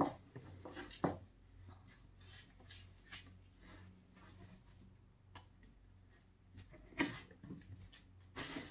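A kitten playing at a cardboard scratcher box on a wooden floor: a few scattered light taps and knocks, one about a second in and a cluster near the end, with quiet stretches between.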